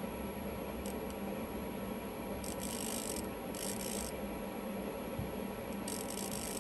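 High-frequency solid-state Tesla coil's plasma flame burning with a steady hiss and low hum, with three stretches of sharper high-pitched hiss about two and a half, three and a half and six seconds in.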